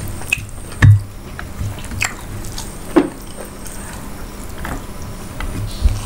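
Close-miked wet eating sounds: fingers mixing rice with curry and mouthfuls being chewed, heard as scattered moist clicks and squelches with a few sharper smacks.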